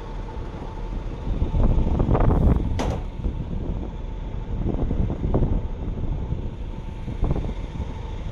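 Arriva Trains Wales diesel multiple unit idling at the platform with a steady hum, with gusts of wind buffeting the microphone and a short hiss about three seconds in.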